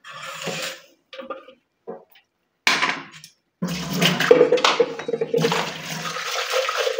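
A few short knocks and clatters as a blender jar is handled at a steel sink, then, about halfway through, tap water runs steadily into the jar to rinse it.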